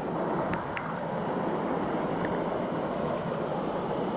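Steady rushing of a waterfall, an even wash of falling water, with a few faint short high chirps over it.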